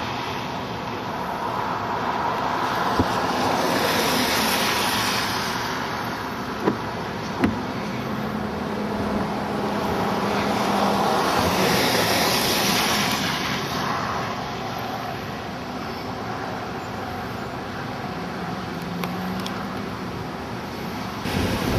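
Road traffic going by, tyre and engine noise swelling and fading as cars pass, with a few sharp ticks about three, seven and seven and a half seconds in.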